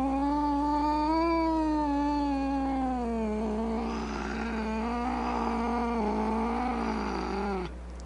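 A cat's long, drawn-out yowl, a caterwaul that wavers slowly up and down in pitch, turns rougher and more ragged in its second half, and stops suddenly near the end.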